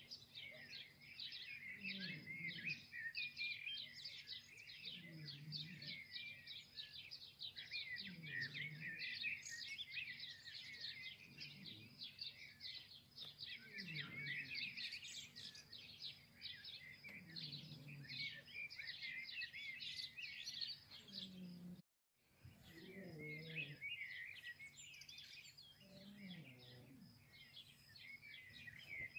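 A dense chorus of small birds chirping, with a lower call recurring about every three seconds. The sound drops out for a moment about two-thirds of the way through.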